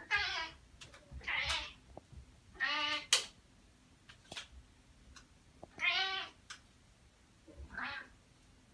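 A cat meowing five times in separate, drawn-out calls, with a sharp click about three seconds in.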